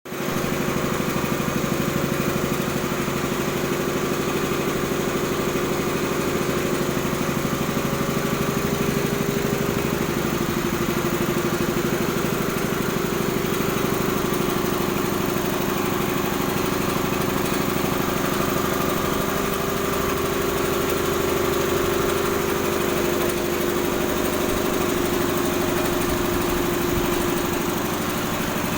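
Air compressor running steadily, with a fast, even pulsing.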